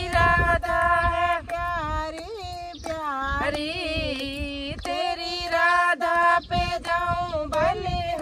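Two women singing a Hindi devotional bhajan to Krishna without instruments, in long held, wavering notes, with hand claps keeping time.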